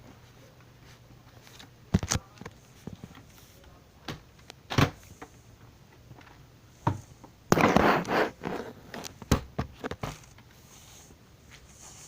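A handful of sharp knocks and clicks at irregular intervals, with a short scraping rustle a little past the middle.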